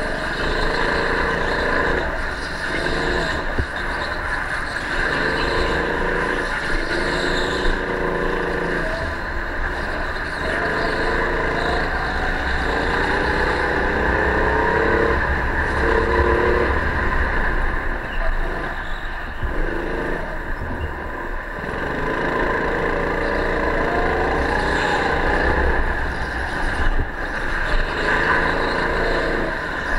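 Go-kart engine heard on board, its note climbing as it accelerates along the straights and dropping away into the corners, over and over, over a steady hiss and rumble.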